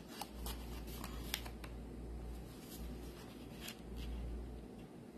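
Faint rustling and a few light ticks of cardstock pieces being handled and fitted together, over a low steady hum.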